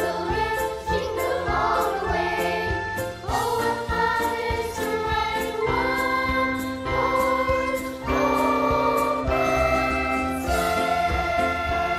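Combined choir singing a Christmas carol medley, accompanied by an instrumental ensemble with a regular percussive beat under sustained chords.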